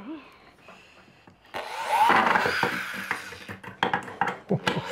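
Old corded DeWalt drill driving a deck screw into wood. It starts about a second and a half in, the motor running up under load as the screw grinds in, then stops and starts in short spurts near the end.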